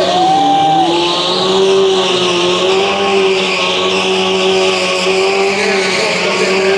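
Sportbike engine held at high revs under a steady, slightly wavering tyre squeal on the smooth concrete floor, with a brief drop in pitch about a second in.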